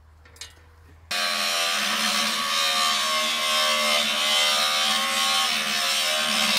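A large angle grinder with an abrasive cut-off disc cutting through the steel casing of an old safe: a steady, loud whine and grinding that starts abruptly about a second in and runs on without a break.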